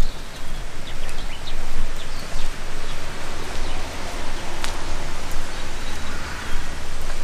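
Outdoor ambience: a steady rushing noise with a low rumble, a few short bird chirps and scattered clicks.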